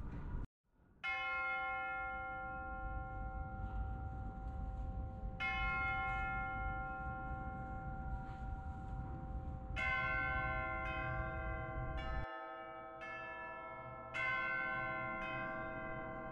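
Church bells ringing: single strikes a few seconds apart, each left to ring on, then quicker strikes on several different notes from about ten seconds in. A low background rumble under the bells stops about twelve seconds in.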